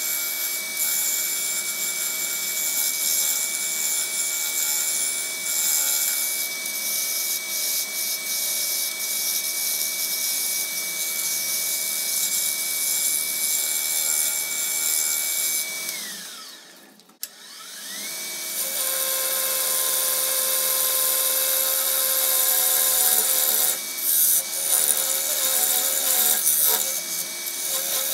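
Wood lathe running with a steady high motor whine while a gouge cuts wet cypress, giving a continuous scraping hiss. A little past halfway the lathe's pitch slides down almost to a stop, there is a click, and it winds back up. The cutting then goes on somewhat louder.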